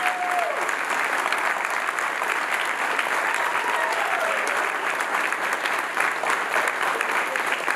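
Wedding guests applauding steadily, with a single cheer a little past halfway.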